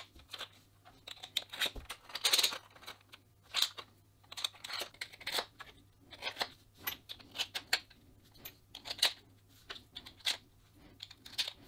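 Steel twist drill bits and 3D-printed PLA drill holders being handled: a string of irregular short clicks and rattles as the bits are slid into the holder's holes and the lid is turned on its ball detent.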